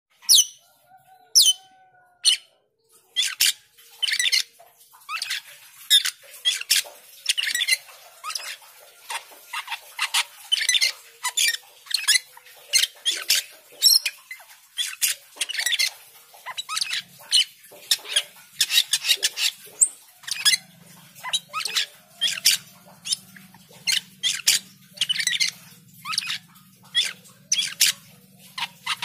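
Caged cucak keling (Asian glossy starling) singing busily: a rapid, continuous string of sharp chirps, squeaks and short whistles. A low steady hum comes in about two-thirds of the way through.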